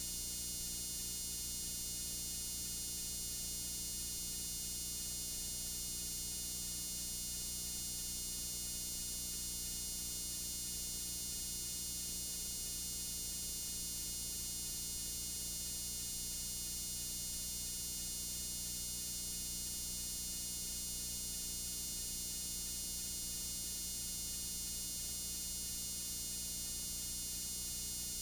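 Steady electrical hum and high hiss from playback of a blank videotape with no recorded sound, unchanging and with no events.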